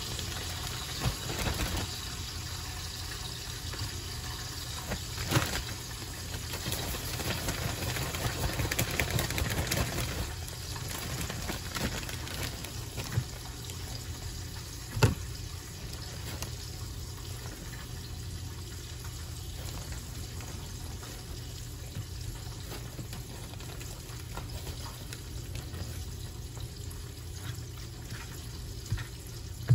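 Steady sizzle of breaded flounder fillets frying in hot oil, with a plastic zip-top bag crinkling and rustling at times as shrimp are shaken in it to coat them in fish-fry breading. A few sharp clicks, the loudest about fifteen seconds in.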